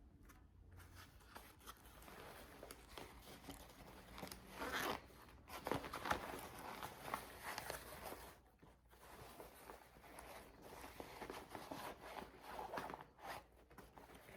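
Faint rustling and scraping of a fabric backpack being handled, with a few short clicks and knocks.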